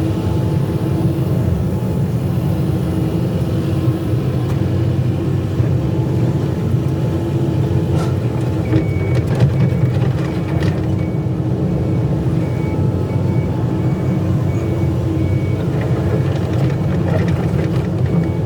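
Excavator diesel engine running steadily under load, with a few sharp metallic knocks. A faint beep repeats about twice a second through the middle stretch.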